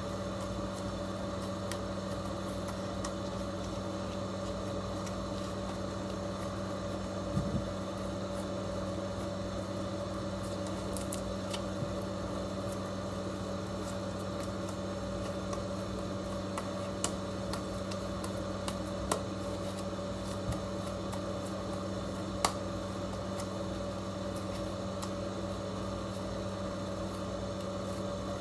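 A steady mechanical hum, with a few faint clicks and light taps scattered through it.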